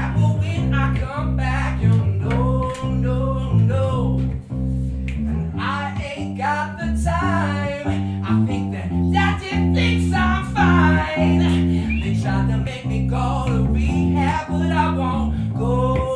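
Live electric bass guitar playing a line of low notes under a man singing.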